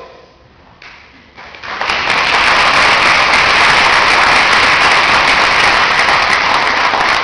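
Audience applauding: fairly quiet at first, then the clapping breaks out about two seconds in and holds steady and loud.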